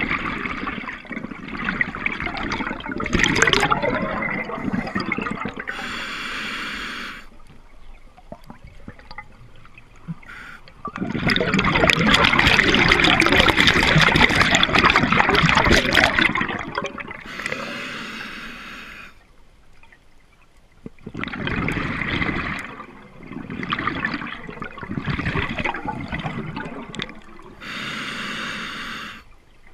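Scuba diver breathing through a regulator: long gurgling rushes of exhaled bubbles alternate with the shorter hiss of each inhalation, three breaths in all.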